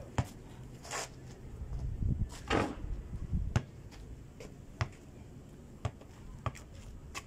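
A basketball bouncing and being shot on a hard dirt court: a handful of separate sharp thuds and knocks, roughly a second apart, with a longer scuffing noise from shoes on the dirt about two to three seconds in.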